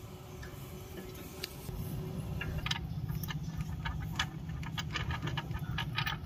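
A ratchet wrench clicking in quick runs, several clicks a second, starting about two and a half seconds in, as an engine mount bolt is worked loose. A low steady hum runs underneath.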